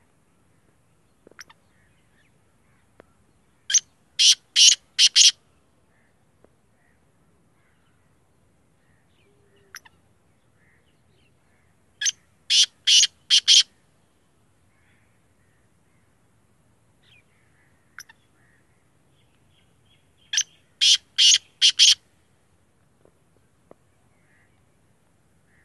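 Black francolin calling three times, about eight seconds apart, each call a quick run of five short loud notes.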